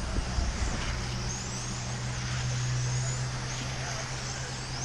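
Electric 1/10-scale RC touring cars racing, their brushless motors and gears whining in repeated rising and falling sweeps as they accelerate and pass. A steady low hum runs underneath.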